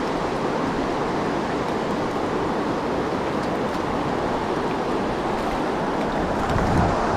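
Steady rush of creek water running over rocks, with low wind buffeting on the microphone coming in near the end.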